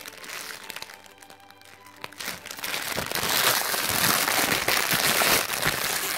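Foil wrapper of a large chocolate Easter egg being crumpled and pulled apart by hands. Soft at first, then loud, continuous crinkling from about two seconds in.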